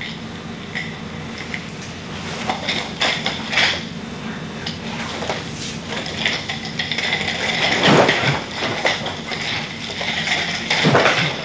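Nunchaku being swung through a kata: repeated clacks and rattles of the sticks and chain, with heavier strikes about eight and eleven seconds in.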